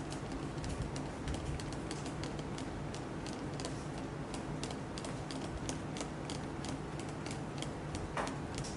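Quick, irregular light clicks and taps, several a second, over a steady low mechanical hum, with one slightly louder knock near the end.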